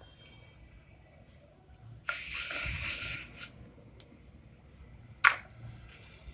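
Handling noise from hands working a rolled roti on a floured wooden rolling board: a rustle lasting about a second that starts abruptly about two seconds in, then a single sharp tap about five seconds in.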